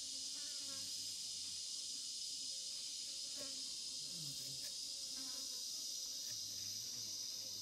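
Steady, high-pitched drone of a forest insect chorus, unchanging throughout.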